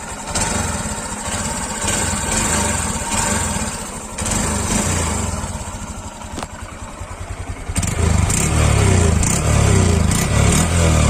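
Honda Shine BS6's 125 cc single-cylinder engine heard through its stock exhaust, the throttle blipped up from idle a couple of times and then held at higher revs from about eight seconds in.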